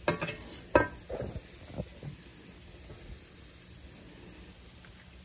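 A metal spatula clinking and scraping against a stainless steel frying pan while scrambled eggs are scooped out, with a few sharp clinks in the first two seconds, then only a faint steady background.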